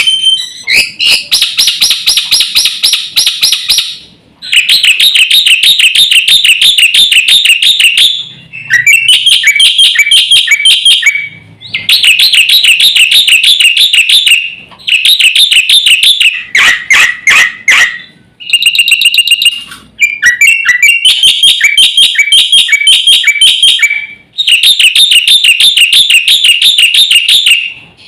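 Black-winged starling (jalak putih) singing loudly in a masteran training recording: bouts of rapid, shrill, repeated notes, each a few seconds long, separated by short pauses.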